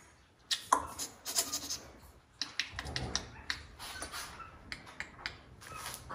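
A run of quick, irregular clicks and smacks, some of them with a short pitched chirp.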